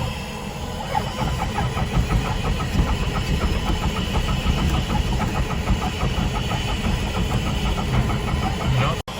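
Diamond DA20 light aircraft's piston engine running steadily, with a regular pulsing beat. The sound breaks off for an instant near the end.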